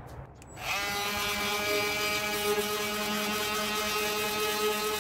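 Handheld electric detail sander starts up about half a second in and runs steadily as its 80-grit pad sands painted wood.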